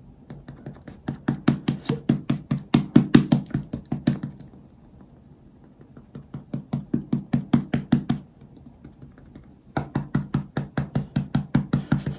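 Cushion-foundation puff patted rapidly against the face: quick runs of soft taps, several a second, in three bursts with short pauses between, a noise she says sounds like a construction site.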